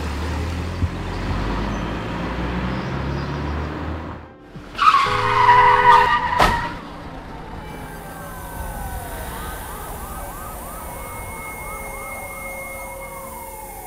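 Car driving with a steady low engine hum that cuts off about four seconds in. Then a loud high screech ends in a sharp crash as the car hits another car. Emergency-vehicle sirens follow, several wails overlapping and rising and falling.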